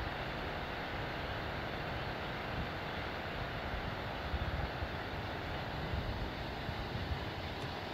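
Steady outdoor background noise, a low rumble under a hiss, with a few brief louder low bumps about four and six seconds in.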